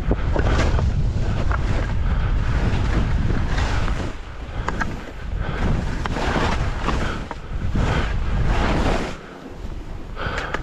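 Wind rushing over the microphone during a downhill ski run, with the hiss of skis cutting through snow that swells in repeated surges every second or so, one per turn.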